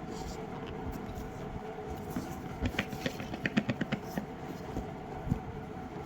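Phone box packaging being opened and handled: a run of quick crackling clicks in the middle, then a single thump, over a steady background hum.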